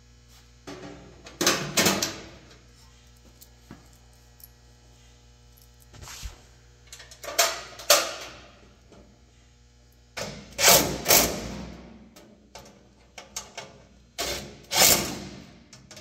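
Knocks and clunks from handling the toaster oven and its metal housing on a steel workbench, in small clusters of two or three every few seconds, each ringing briefly, over a faint steady hum.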